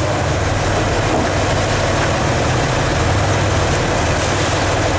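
Boat engine running steadily, a low drone under a rush of wind and water noise.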